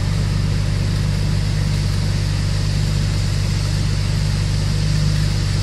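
Car engine idling with a steady low hum, under an even, steady hiss from the automatic car wash's spraying and machinery.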